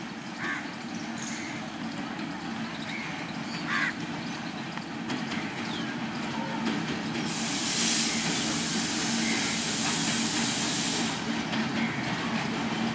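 WDM-3A diesel locomotive's 16-cylinder ALCO engine running as the train rolls slowly into the station, growing steadily louder as it comes closer. From about seven seconds in, a loud hiss runs for about four seconds, then stops.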